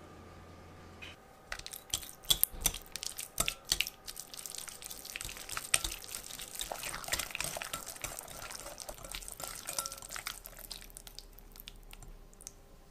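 Kitchen food preparation: a series of sharp clicks and knocks, then a dense run of rapid scraping and tapping that fades near the end.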